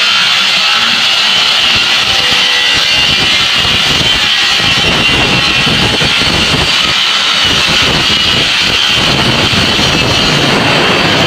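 A power tool running steadily and loudly, its noise centred high, with a lower rumble that strengthens in the middle and fades again.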